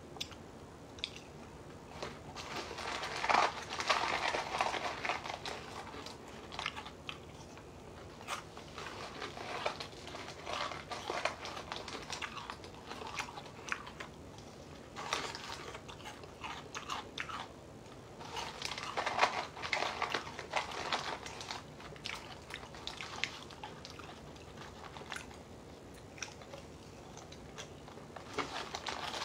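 Close chewing and crunching of dry Lucky Charms cereal and its hard marshmallows, eaten by hand from the box without milk. It comes in spells of a few seconds with quieter pauses between.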